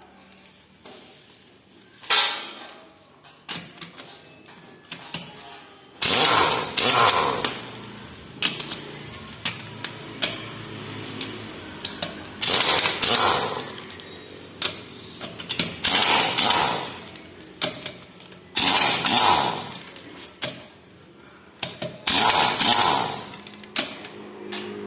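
Power tool in a tyre change running in short bursts of about a second, about six times, typical of a pneumatic impact wrench, with smaller knocks of tools and parts between.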